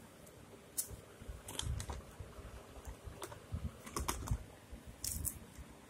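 Scattered light clicks and taps of small plastic items, a lens-solution bottle and a contact-lens blister pack, being handled and set down on a table, with a few soft bumps.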